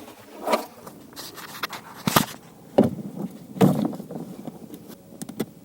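9 mm alloy-steel snow chain links clinking and rattling as they are handled and hooked together on a car tyre, in several short rattles with quiet gaps, the loudest about two seconds in.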